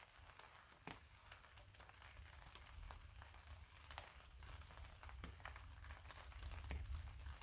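Faint light rain, with single raindrops ticking irregularly, several a second, over a low steady rumble.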